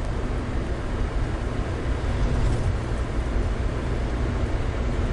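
Steady low rumble of a car's engine and tyre noise, heard from inside the moving car's cabin.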